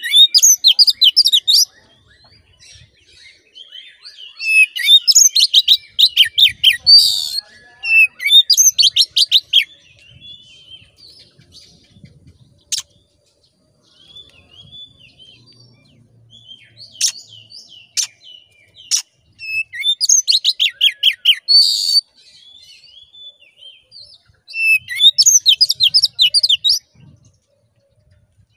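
Oriental magpie-robin (kacer) singing loud, vigorous song in several bursts of fast, repeated high notes, each one to three seconds long, with pauses between and a few single sharp notes around the middle.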